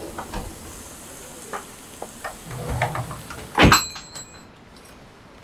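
A glass-panelled door being opened and shut, with small clicks and rattles and then one loud knock as it closes about three and a half seconds in. The room noise behind it drops after the door shuts.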